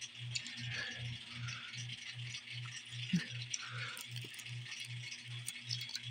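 Faint clicks and light rustles of small die-cast metal toy cars being handled, picked up and set down, over a low hum that pulses about three times a second.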